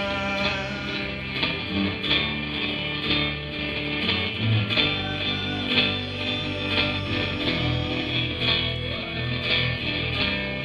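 Live rock band playing an instrumental passage: electric guitar over bass and drums, with steady drum and cymbal hits and no vocals.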